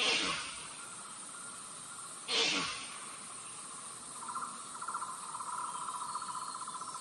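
Female deer lure call: two short calls that fall steeply in pitch, about two seconds apart. From about four seconds in, a steady pulsing insect buzz continues under it.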